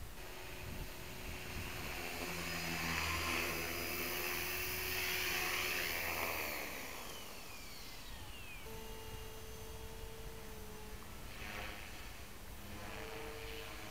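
Electric RC helicopter (MSH Mini Protos on a 4S brushless motor) rotor and motor whine, loudest in the first six seconds as it comes in close, then falling in pitch as it spools down on the ground about seven seconds in. After a cut near nine seconds, a steadier, fainter whine of the helicopter flying again.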